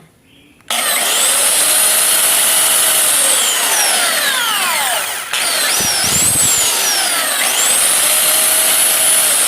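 Makita belt sander switched on about a second in, its motor whining up to speed and running steadily, with a brief dip about five seconds in before it speeds up again. It runs without the fan scraping the aluminium housing, the armature now shimmed against end play.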